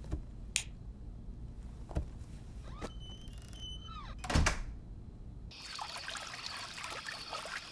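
Wooden interior door opening and closing: a few clicks and knocks, then a thump as it shuts about four and a half seconds in. After that, a small garden fountain's water trickles and splashes steadily, with a faint high steady tone above it.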